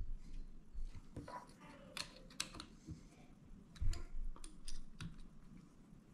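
Scattered small clicks and light knocks of metal and plastic parts as a knife sharpener's clamp holder is handled and fitted back onto its guide rod, with a louder knock at the start and another about four seconds in.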